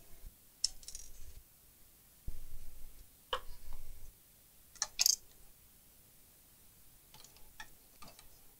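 A circuit board and tools being handled on a workbench: a few sharp metallic clinks and knocks, the loudest two close together about five seconds in, with low rumbling handling noise before them and fainter clicks near the end.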